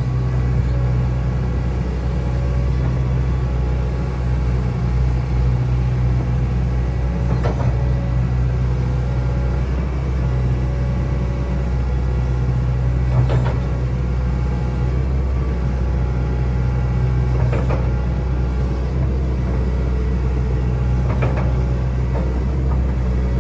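Hitachi Zaxis excavator's diesel engine running steadily at working speed while digging, with a few sharp knocks every several seconds.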